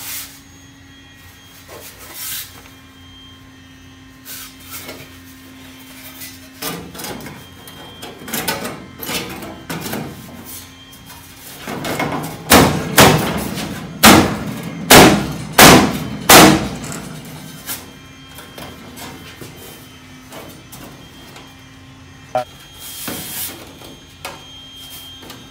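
A flat sheet of steel being handled and pressed by hand around the curved corner of an old Jeep's steel body tub: scraping and flexing of the thin sheet, with scattered light knocks and a run of about six loud metal knocks close together about halfway through.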